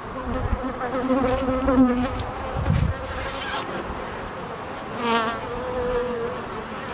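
Honey bees buzzing around an open hive, individual bees flying close past the microphone with a hum that wavers in pitch and swells as each one passes. The colony is calm, not defensive.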